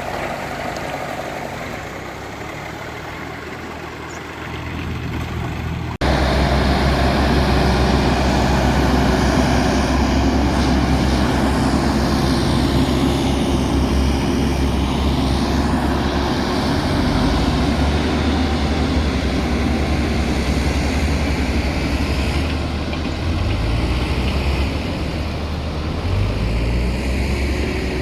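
Diesel engine of heavy earth-moving machinery running steadily. About six seconds in, the sound jumps abruptly to a louder, deeper engine run, and the engine note shifts up and down a few times near the end.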